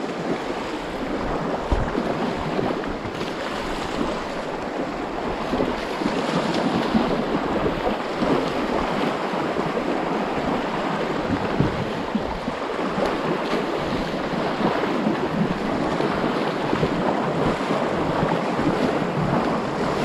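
Shallow, fast river water rushing and splashing over rocks close to the microphone, with wind buffeting the microphone now and then.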